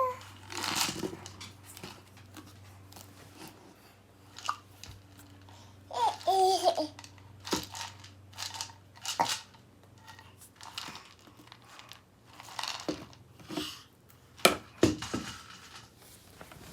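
A baby of about ten months gives a short babbling sound about six seconds in. Around it are scattered crinkling, rustling and small knocks from her handling things.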